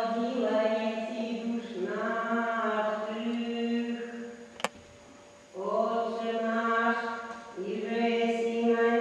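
Slow chant sung in long held notes, in two phrases with a pause about halfway through, where a single sharp click sounds.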